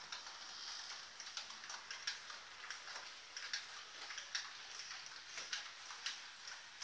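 Piko Vectron BR 193 model electric locomotive and its freight wagons rolling along the track. A faint steady running hiss is overlaid with many irregular clicks as the wheels cross rail joints.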